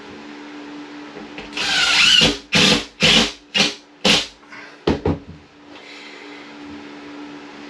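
Cordless drill driving a drywall screw into a drywall panel: one run of about a second with a rising whine, then four short bursts and two quick blips as the screw is seated.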